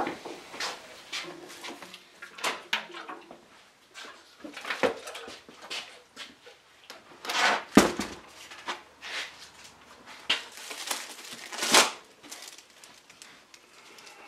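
Weights and boards being taken off a glued-up panel on a workbench: metal paint cans and wooden blocks knocked and set down, with scattered clunks and two louder knocks about eight and twelve seconds in.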